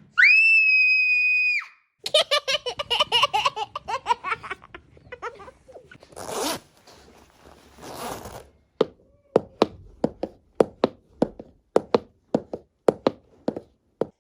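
A string of separate sound effects: a steady high tone lasting a second and a half, then a couple of seconds of rapid high-pitched chattering, two short hissing swooshes, and a run of sharp irregular clicks.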